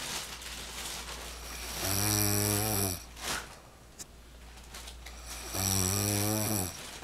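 A man snoring in his sleep: two deep snores, each lasting about a second, roughly three and a half seconds apart.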